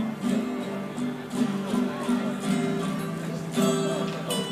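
An ensemble of guitars playing together: steady picked notes over strummed chords, with a couple of sharper strums near the end.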